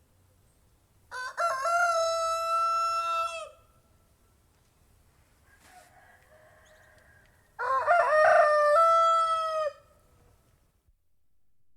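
Domestic rooster crowing twice, each crow a broken start followed by a long held note that falls away at the end, the two about four seconds apart.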